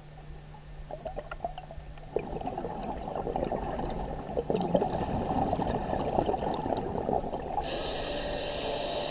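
Underwater sound of scuba divers' exhaled bubbles crackling and rushing, growing louder about two seconds in, over a steady low hum. Near the end a higher hiss joins in.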